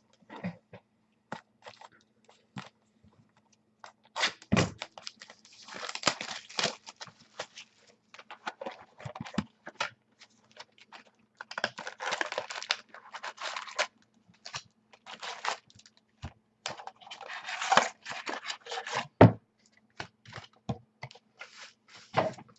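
Plastic wrapping being torn and crumpled in rustling bursts, as a sealed box of football trading cards is opened, with a couple of sharp knocks.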